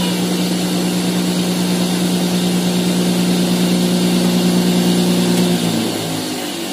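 Cotton candy machine running with a steady electric hum as its spinner head turns, while candy floss is wound onto a stick. Near the end the hum drops and wavers.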